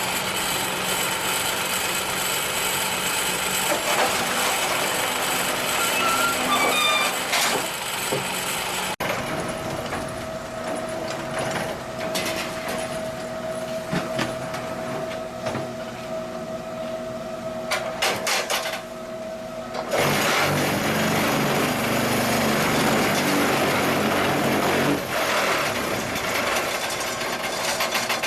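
QTJ4-25 semi-automatic concrete block machine running, a loud, continuous mechanical clatter that changes in stages. About a third of the way in it settles into a steadier hum with one held tone. About two-thirds in it turns louder and noisier for several seconds, then eases.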